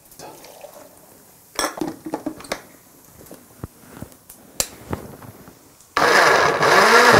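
A few clicks and knocks as the blender jar is handled, then about six seconds in a countertop blender starts abruptly and runs loud and steady, puréeing chopped tomatoes.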